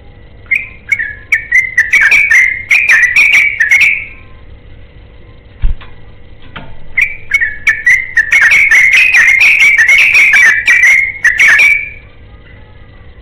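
Yellow-vented bulbul (trucukan) singing two bouts of quick, bubbly, warbling whistled phrases, with a pause of a few seconds between them.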